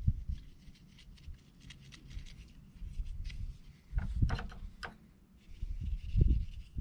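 Scattered knocks, rubbing and clicks of plastic drain pipe and fittings being handled, with a quick run of sharp clicks about four to five seconds in.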